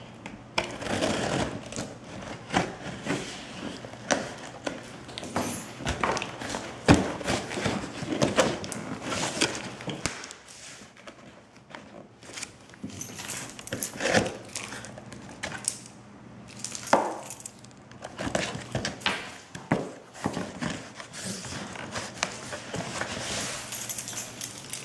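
Cardboard sewing-machine box being opened by hand: packing tape slit with a small cutter, then the flaps pulled up and the cardboard handled, in irregular scrapes, rustles and knocks, with the loudest knock about seven seconds in.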